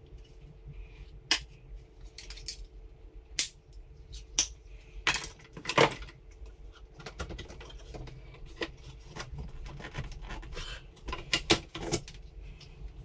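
Hard plastic clicking and knocking as an Oatey Quadtro plastic washing-machine outlet box and its mounting brackets are handled and pushed into a wall opening: irregular sharp taps, with a quick cluster near the end. A steady low hum runs underneath.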